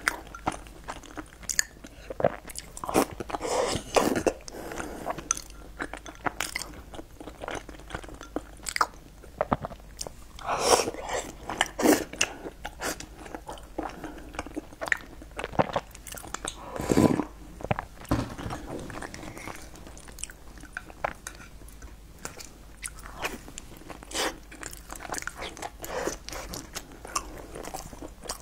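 A person eating close to the microphone: chewing and biting food dipped in milk, with wet mouth smacks and sharp clicks coming in uneven bursts.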